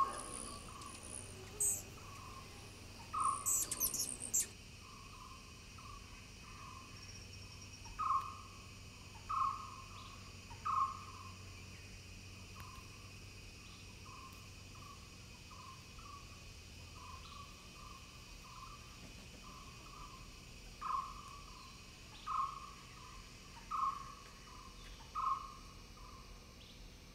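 A bird calling with a long series of short hoots, all at the same pitch, some loud and some faint, coming about once a second over a steady insect drone. A few high, quick chirps come in the first few seconds.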